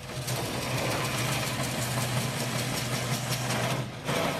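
A handheld power tool's motor running steadily while cutting a round vent hole through a plastic aircraft door window. It breaks off briefly about four seconds in, then starts again.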